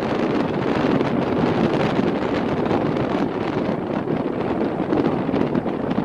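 Strong wind blowing across the microphone: a loud, steady rush of wind noise.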